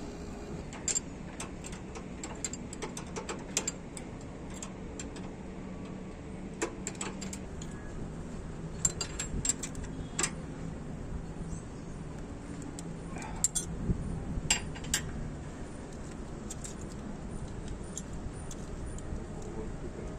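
Irregular sharp metallic clinks and clicks of hand tools and small metal parts being handled, over a steady low hum.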